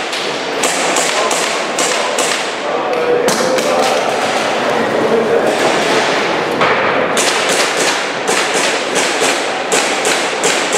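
Airsoft pistol shots in quick strings: several shots in the first few seconds, a pause of about two seconds, then a long fast string near the end.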